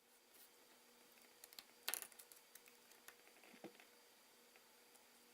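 Faint, scattered clicks and taps of a small screwdriver working the tiny screws in an iPhone 4S frame, the sharpest tap about two seconds in, over a faint steady hum.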